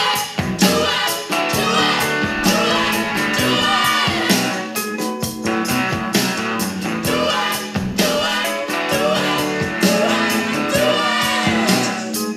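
Sanyo MX-650K boombox playing a song with singing through its speakers, loud and steady.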